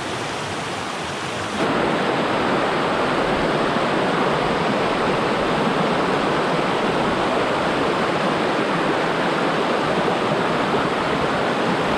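Water rushing over boulders in a small rocky stream's rapids, a steady noise that steps suddenly louder a couple of seconds in.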